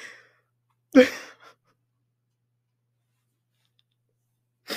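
A woman's voiced, breathy sigh about a second in, with softer breaths at the start and near the end, from someone on the verge of tears.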